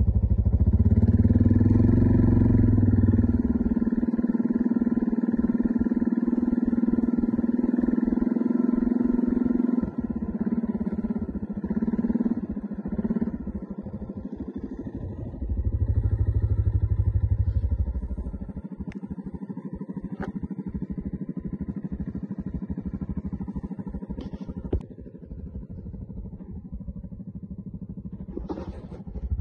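Quad bike (ATV) engine running under load while towing a weed wiper, swelling louder twice, at the start and again around the middle, with a few light knocks near the end.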